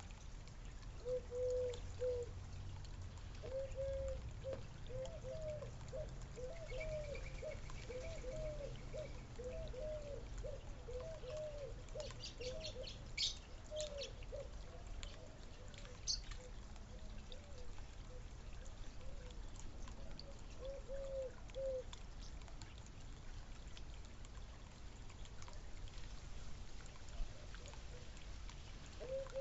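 A bird calling in a long series of short, low, repeated notes, a little more than one a second, that stops about two-thirds of the way through, with a few brief high chirps and clicks.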